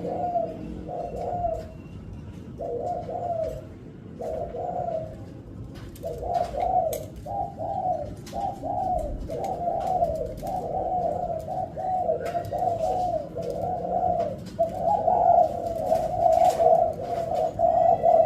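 Spotted dove (tekukur) cooing in a stuttering variation: runs of short, repeated coos broken by brief pauses, coming closer together and louder over the second half.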